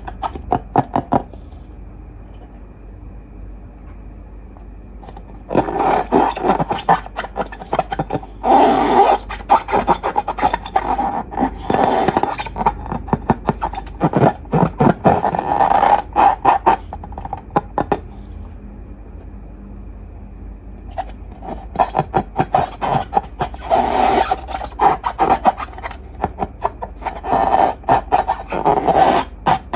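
Slime being squeezed and worked by hand, giving long runs of rapid crackling and popping clicks with two quieter pauses.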